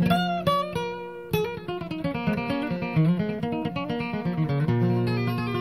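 Music: acoustic guitar picking a quick run of notes, settling on a held low note near the end.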